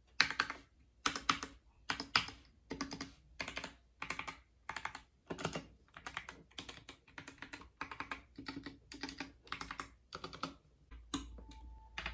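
Fast typing on a GK61 mechanical keyboard with lubed Gateron Optical Red linear switches and a foamed case: quick clusters of keystrokes about twice a second. Faint music comes in near the end.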